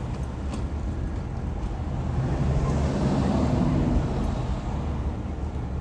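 Motor vehicle engine and road noise, a steady low rumble that swells for a couple of seconds in the middle.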